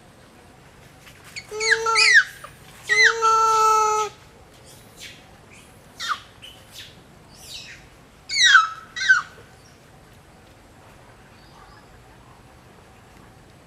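Animal calls: two long, steady-pitched calls about two and three seconds in, each opening with a quick downward slide. A pair of short, sharply falling calls follows near nine seconds.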